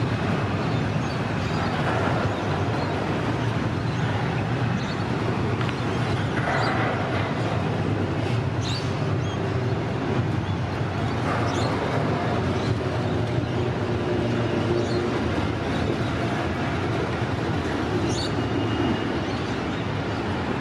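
Intermodal container freight train wagons rolling past at steady speed: an even rumble of steel wheels on rail. A few brief high squeaks sound over it now and then.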